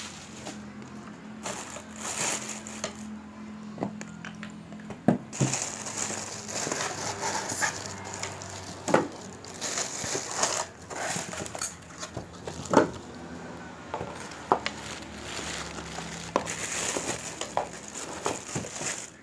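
Plastic wrapping crinkling and rustling as it is handled and pulled off a new air rifle, with several sharp knocks from the rifle and cardboard box.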